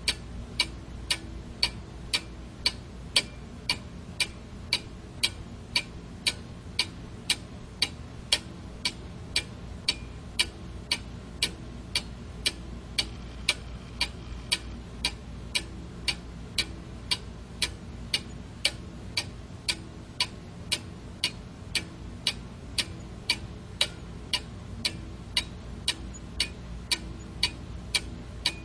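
Clock ticking steadily and evenly, about two sharp ticks a second.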